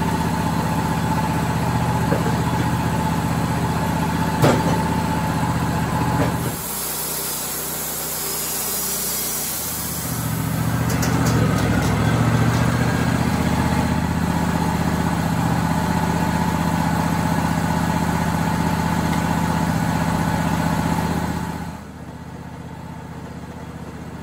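Wood-Mizer portable band sawmill running under power as it saws a board from a hard, ten-year-old oak cant with a carbide band blade. The engine runs steadily, changes for a few seconds about a quarter of the way in, runs hard through the cut for about ten seconds, and drops back to a lower, quieter speed near the end.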